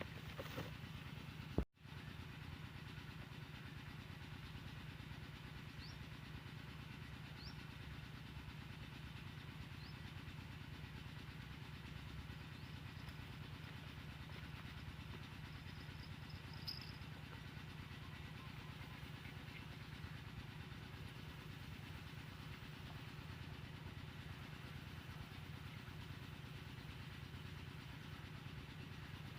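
Steady low drone of a small engine running evenly, with a brief dropout near the start.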